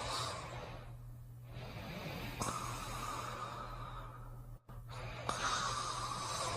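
Slow, noisy breathing of a sleeper: long rasping breaths that come every few seconds, each starting suddenly and fading out. A steady low hum runs underneath, and there is a brief dropout about two-thirds of the way through.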